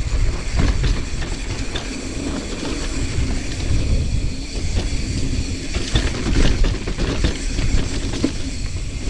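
Mountain bike descending a dirt trail: tyres rolling over the dirt and the bike rattling and clicking over bumps, with wind rumbling on the microphone.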